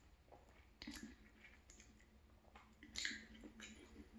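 Faint close-up chewing of a croissant, with soft mouth clicks and a couple of brief crackles, the clearest about one second and three seconds in.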